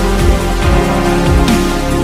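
Background music with a steady beat: held chords over recurring low drum thumps.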